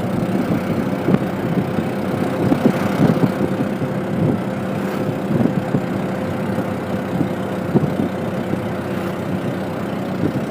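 CNG auto-rickshaw's small engine running steadily, with irregular rattles and knocks from the vehicle over the engine noise.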